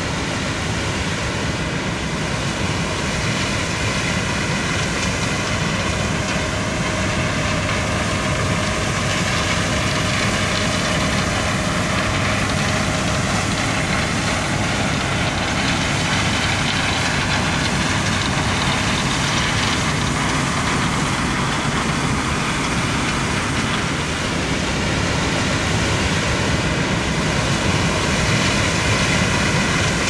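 Claas Lexion 8700 combine harvesting corn: engine and threshing machinery running steadily, a dense mechanical noise with a faint steady whine, growing a little louder toward the end as it passes.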